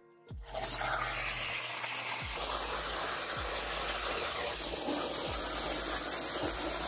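CNC plasma cutter torch cutting steel plate: a steady hiss of the arc that starts about half a second in and carries on unbroken.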